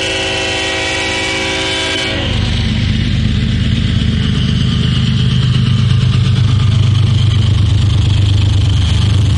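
Diesel locomotive air horn sounding a steady chord of several notes, cutting off about two seconds in. It is followed by the low rumble of the approaching Canadian Pacific diesel locomotive, which grows louder.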